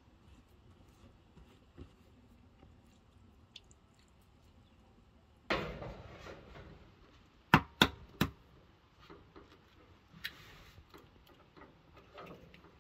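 Food-preparation handling noises: a sudden knock about five and a half seconds in, then three sharp taps in quick succession and a few lighter clicks, as eggs are set down and cracked into a glass mixing bowl.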